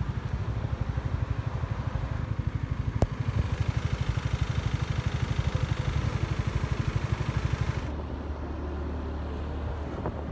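Motorcycle engine running with an even, rapid low pulsing. About eight seconds in it changes to a steadier low drone. A single sharp click comes about three seconds in.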